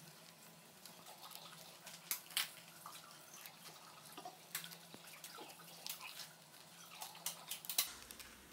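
Scissors snipping through a sheet of printed paper, a string of short, irregular cuts with the paper rustling as it is turned.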